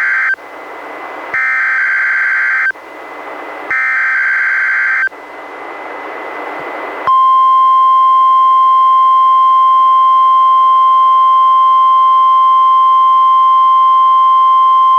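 NOAA Weather Radio SAME alert header received on a weather radio: the end of one burst of warbling digital data tones, then two more bursts of about a second and a half each, with radio hiss between. About seven seconds in, the steady 1050 Hz warning alarm tone starts and holds, sounded here as the weekly test of the alarm.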